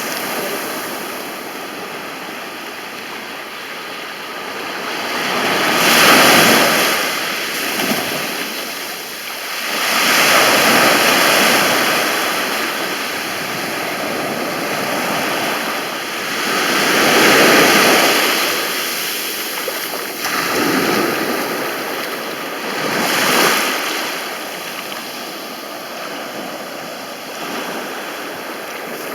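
Mediterranean sea waves breaking on a beach: the surf swells and falls back in four surges, about one every five to seven seconds.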